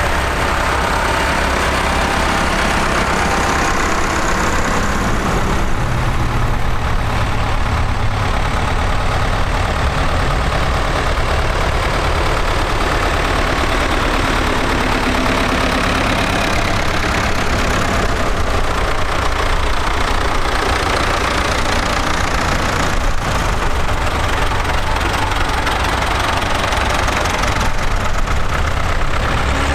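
Diesel engines of vintage tractors, a Massey Ferguson and Ford 5000s, running at low speed as they pass one after another in a line. The engine sound is steady throughout.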